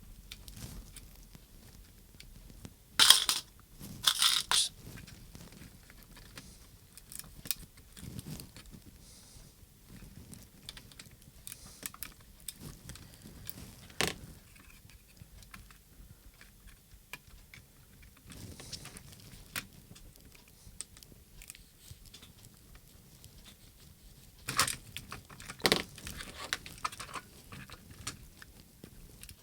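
Small clicks, taps and rattles of a handheld radio transmitter's plastic case and internal parts being handled during disassembly, with a few louder brief noisy bursts about three and four seconds in and again near twenty-five seconds.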